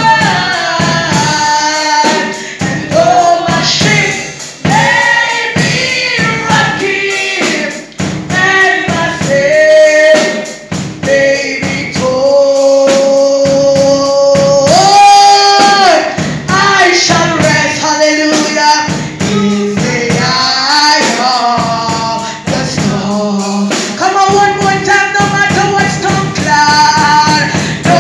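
Gospel worship singing: a man and several women sing together, one woman's voice carried through a microphone, some notes long-held, over a steady percussive beat.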